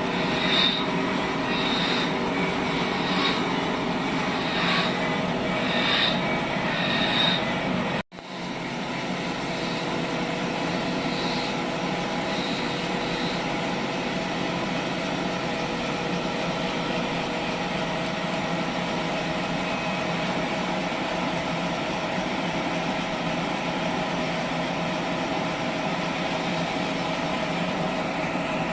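Sawmill saw running and cutting dry wood on a log-carriage machine, a steady mechanical run with several steady tones. Over the first eight seconds short high squeaks repeat about once a second; after a sudden break the sound goes on steadily.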